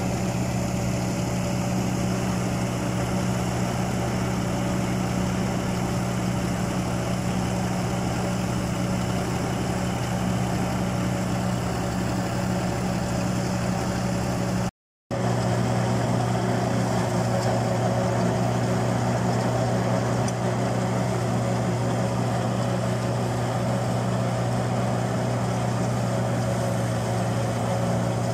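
Fiat 480 tractor's diesel engine running steadily, driving a peanut thresher through its power take-off as plants are fed in. The sound cuts out for a split second about halfway through, then resumes slightly louder.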